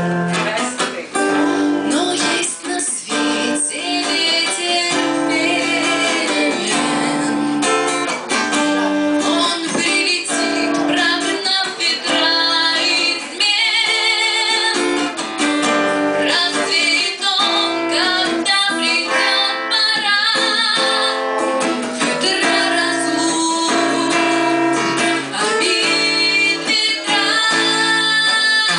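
A song with a woman singing over a strummed acoustic guitar.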